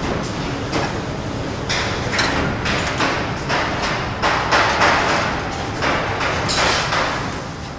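Metal factory ambience: a steady din of industrial machinery with frequent metallic knocks and clanks and repeated louder rushes of noise, growing quieter near the end.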